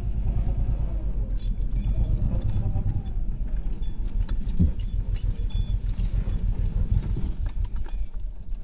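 Slowed-down audio of a motorcycle crash: the Honda NTV 650's V-twin engine and wind noise dragged down into a deep rumble made of dense rapid pulses, with a thud about halfway through as the bike goes off the road into the grass. It fades out near the end.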